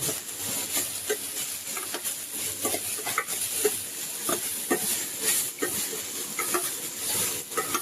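Chopped vegetables sizzling in oil in a kadhai, with a spatula scraping and knocking against the pan every second or so as they are stirred.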